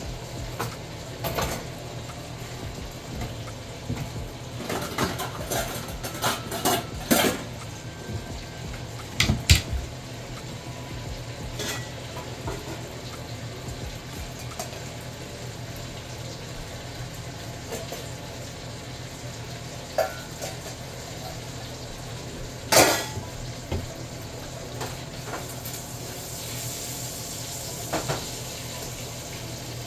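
Kitchenware handled at the stove: dishes, pots and utensils knock and clink now and then, with a cluster of clatters a few seconds in and a sharp one about three quarters of the way through, over a steady low hum.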